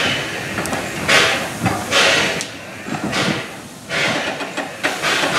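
Steam locomotive 423.094, a class 423 tank engine, chuffing slowly as it moves at walking pace. Its exhaust beats come about once a second and vary in strength.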